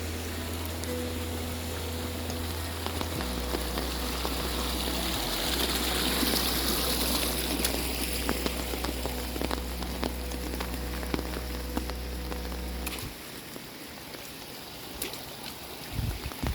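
Steady rain and running water, with background music whose sustained low synth notes change in steps and cut off about thirteen seconds in, leaving the rain alone with scattered drip clicks.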